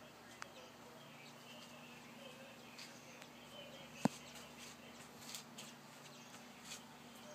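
Faint bird chirps in the background over a low steady hum, with a single sharp click about four seconds in.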